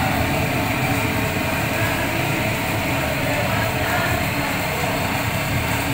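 Industrial gas stove burner running at full flame: a steady rushing noise that does not change or pause.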